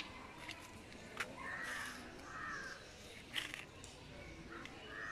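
Crows cawing: harsh calls, two together about a second and a half in and another near the end, with a couple of sharp clicks in between.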